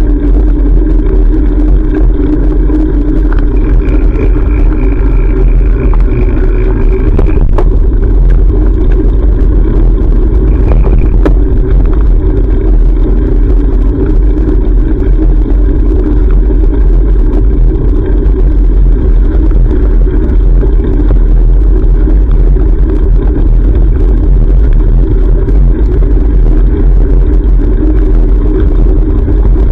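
Loud, steady low rumble of road traffic and wind noise, as heard from a bicycle riding along.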